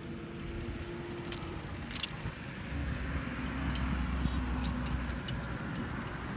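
A motor engine runs steadily in the background, its low hum growing heavier for a couple of seconds in the middle, with a few sharp clicks of shells knocking together as they are picked from a cast net.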